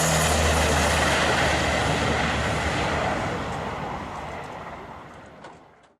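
Aircraft engine noise during takeoff, loud at first and then fading away steadily over several seconds as the plane climbs off.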